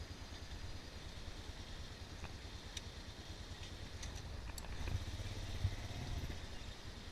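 ATV engine running at low revs with a steady low pulse, growing louder about five seconds in, with a single sharp knock shortly after.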